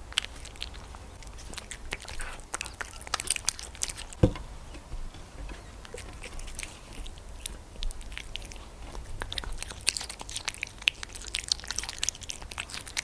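A silver shaded cat chewing and biting food close to the microphone: a steady run of irregular crisp crunching clicks, with one louder knock about four seconds in.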